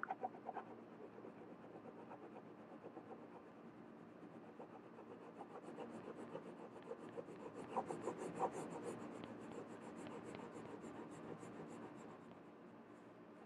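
A colored pencil scratching on paper, shading in quick back-and-forth strokes. It is faint and grows louder and denser in the middle, loudest about eight seconds in.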